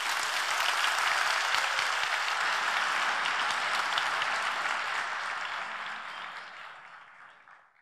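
Audience applauding, a dense steady clapping that fades out over the last couple of seconds.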